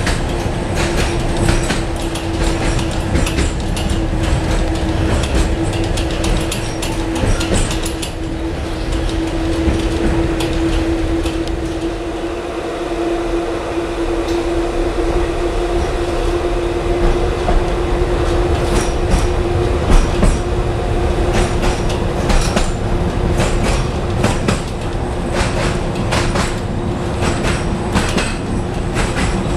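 Tatra T4D tram and B4D trailer running along the track, heard from inside at the rear window: a steady running noise with a constant hum, and the wheels clacking over rail joints, more thickly in the second half.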